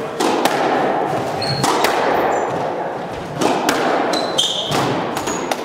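Squash rally: the ball cracking off rackets and the court walls, about eight hits, each ringing in the enclosed court, with brief squeaks of shoes on the hardwood floor between them.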